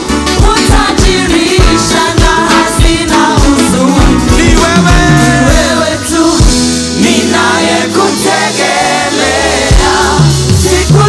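Live gospel worship music: voices singing over a band with a steady drum beat and bass.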